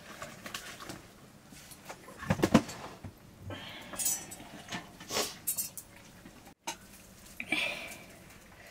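Steel cooking pots and utensils clinking and knocking several times, the loudest knock about two and a half seconds in.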